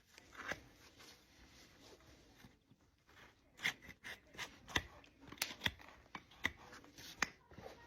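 Hoof horn on a large draft horse's hoof being cut during trimming: a series of sharp, crunchy snips and cracks, a couple at first and then about a dozen in quick succession in the second half.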